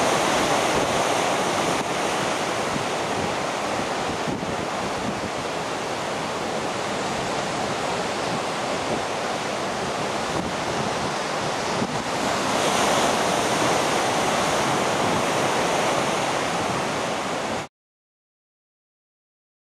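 Rough sea surf churning and washing over itself in a steady rush of noise, with wind buffeting the microphone. It cuts off abruptly near the end into dead silence.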